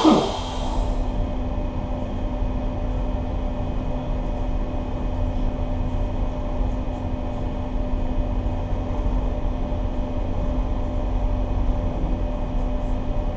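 Towboat's diesel engines running steadily: a low, even drone with a constant hum.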